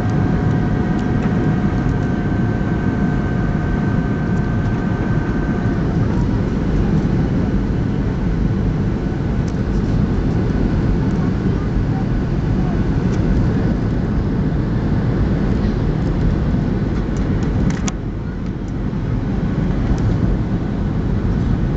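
Steady rumble of engine and airflow noise inside the cabin of a Boeing 737-800 in flight on approach. A thin, high whine sits over the rumble and stops about six seconds in, and the noise dips briefly near the end.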